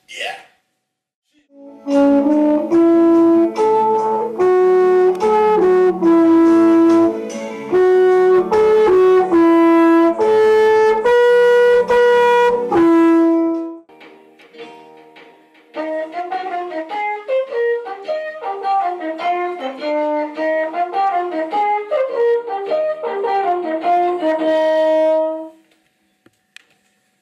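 A solo wind instrument plays two short melodies with a pause of about two seconds between them. The second melody, in quicker notes, is played on a flugelhorn.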